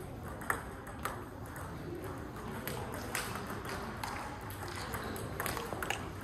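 Table tennis ball clicking off bats and table in a rally: a string of sharp clicks about half a second apart.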